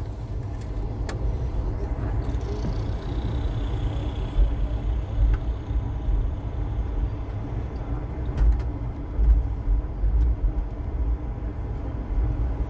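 Train running on the rails: a steady low rumble with occasional short clicks and knocks.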